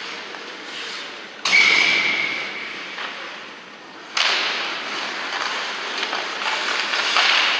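Ice hockey referee's whistle blown once about a second and a half in, a single steady shrill tone lasting about a second and a half over the rink noise. About four seconds in a sudden clack of sticks at a faceoff is followed by skates scraping and sticks on the ice.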